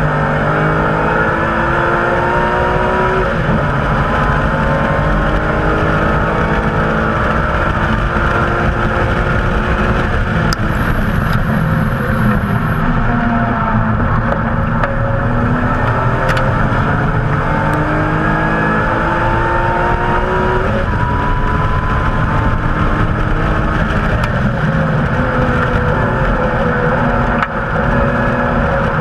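BMW M Coupe engine at racing speed on track, accelerating hard and shifting up and down the gears, its pitch climbing repeatedly and dropping back, with steady road and wind noise underneath.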